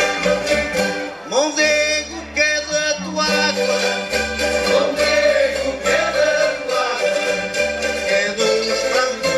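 A plucked-string folk ensemble of mandolins and guitars, with a violin, playing a vira, a lively Portuguese folk dance tune.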